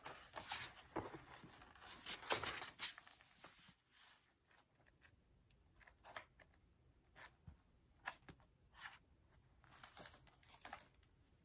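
Pages of a large hardcover picture book being turned by hand: soft paper rustles and flicks, more frequent in the first few seconds, then scattered faint page turns.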